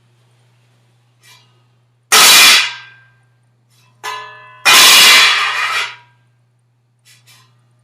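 Metal utensils dropped onto a hard surface, clattering: two loud crashes, about two seconds in and just under five seconds in, each ringing away over about a second. A short ringing clang comes just before the second crash, and a few faint ticks follow near the end.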